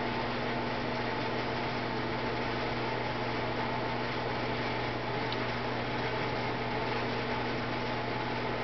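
Steady, unchanging hum with an even hiss: room or appliance noise, with no animal sound standing out.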